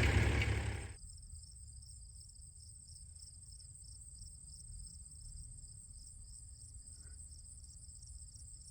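Crickets chirping in a fast, even pulsing trill, with a faint low rumble underneath. A louder engine-like rumble cuts off abruptly about a second in.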